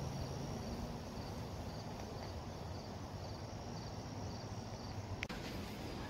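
Insects chirping in short pulses, about two a second, with a faint steady high buzz, over a low rumble. A single sharp click about five seconds in.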